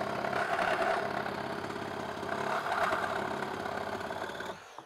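Kobalt brushless one-handed reciprocating saw cutting through a wooden board with nails in it, running steadily under load. It stops near the end.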